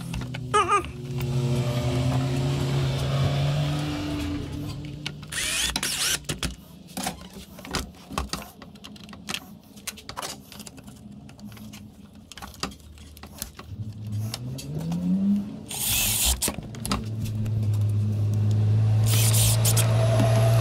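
Workshop handling sounds: scattered clicks and knocks of metal and plastic parts, with a steady low machine hum at the start and again near the end, and one short rising whine in between.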